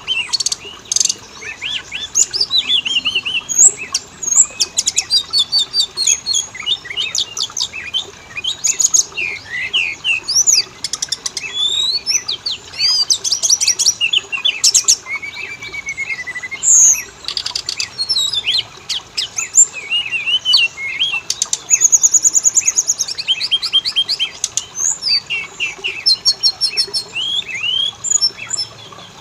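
Oriental magpie-robin (kacer) singing a continuous, varied song of clear rising and falling whistles, trills and rapid runs of repeated notes.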